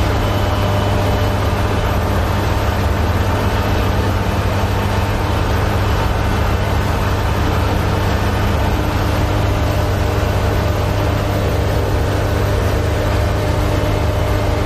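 Sugar beet harvester running at steady work, its engine droning evenly while the unloading elevator conveys beets into a trailer with a continuous rattle of tumbling roots.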